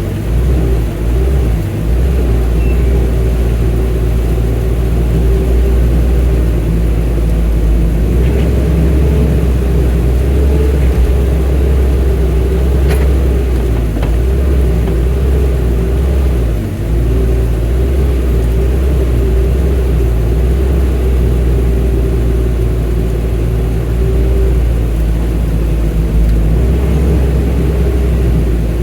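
Excavator's diesel engine running steadily, a continuous deep rumble with a steady hum.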